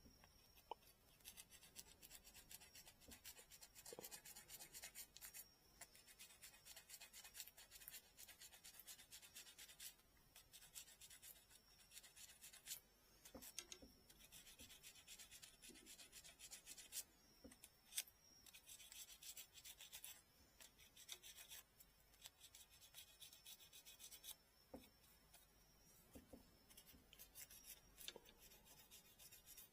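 Folded sandpaper rubbed quickly back and forth on a bamboo rod section, faint, in runs of strokes a few seconds long with short pauses between, scouring black dirt from around the nodes.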